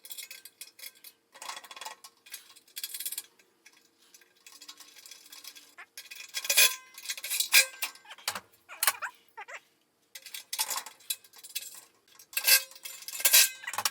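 Irregular metal clinks and clanks, some with a short ring, as steel blades are handled and bolted inside a steel cement mixer drum.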